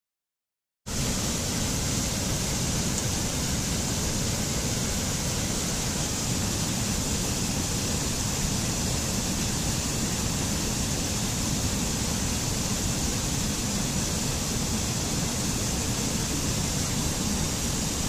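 Steady rush of a small mountain stream cascading over rocks, starting abruptly about a second in and holding at an even level throughout.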